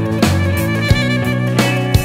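Instrumental background music: sustained pitched notes over a steady drum beat.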